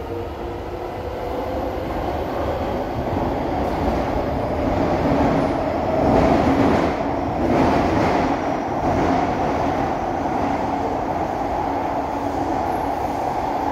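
Cabin noise of an SMRT C151B metro train running between stations: a steady rumble of wheels and running gear heard from inside the car. It grows louder over the first several seconds, then holds level.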